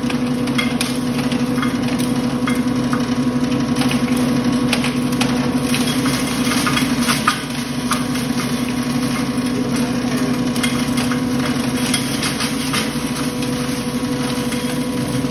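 Electric-motor-driven poultry and cattle feed grinder running steadily with a constant hum, while it is fed through the hopper. Scattered sharp ticks and rattles come through the hum.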